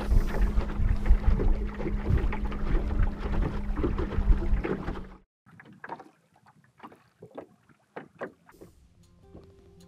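Small boat running under its outboard motor over choppy water: a steady motor hum with water slapping against the hull and wind on the microphone. It cuts off abruptly about five seconds in, leaving only faint scattered knocks and splashes of water against the hull.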